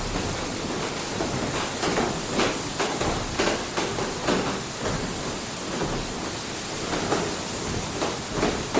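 Inside a working water mill: a steady rush of falling water, with irregular knocks and splashes coming every half second or so.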